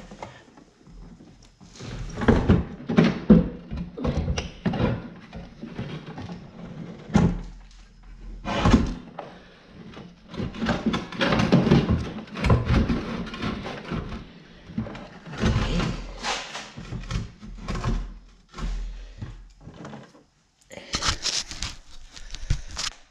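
Irregular thunks, clunks and scrapes of metal as a small engine is manhandled into place on a golf cart's rear engine plate.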